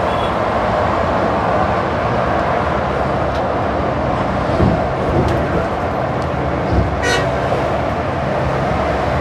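Steady road and wind noise of vehicles travelling on a highway, with a short vehicle horn toot about seven seconds in.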